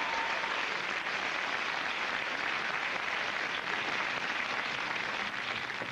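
Studio audience applauding, a dense steady clapping that eases off slightly near the end.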